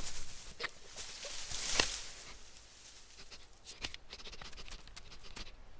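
Dry autumn leaves rustling and crackling in quick flurries as a small animal scrambles through a leaf pile, with a sharp hit about two seconds in.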